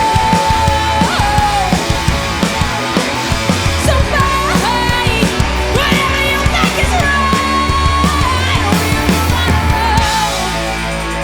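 Rock band playing with drums, electric guitar and bass under a lead line of long held notes that bend in pitch. About ten seconds in, the drums stop and a chord is left ringing.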